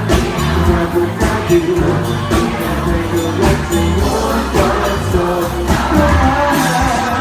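Live pop band playing, with a singer's voice over a steady bass line and regular drum hits.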